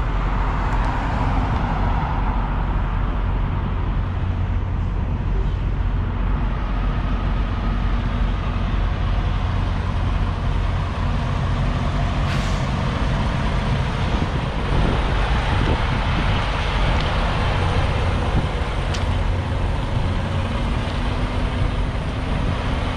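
Semi truck's diesel engine running steadily, a continuous low rumble.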